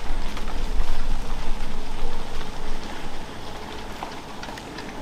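Feral hogs feeding at a bait pile: irregular crunching and crackling over a low rumble that eases off about three seconds in.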